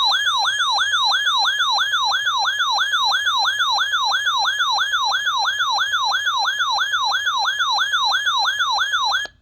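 Electronic siren-like alert tone, a single loud pitch sweeping rapidly up and down about three times a second, cutting off sharply near the end.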